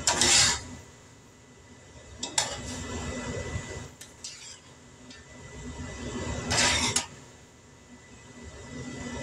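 A utensil scraping and clinking against a skillet as hamburger patties are moved around and coated in brown gravy. There are a few short scrapes: the loudest comes right at the start, another about two and a half seconds in, and another about two-thirds of the way through.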